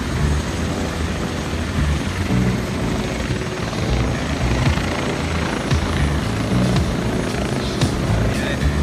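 Helicopter approaching the pad to land, its rotor beating steadily and low.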